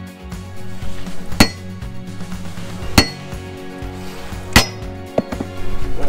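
Spike maul striking a steel rail spike: three ringing metal clangs about a second and a half apart, with a smaller click near the end. Background music plays underneath.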